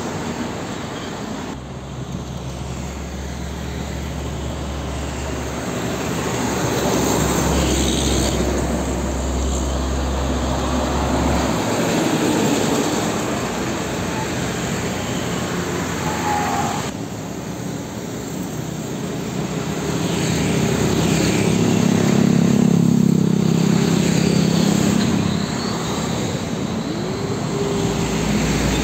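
Heavy diesel trucks passing on a highway one after another: engine drone and tyre noise that swells twice as trucks go by and then fades, over steady road traffic.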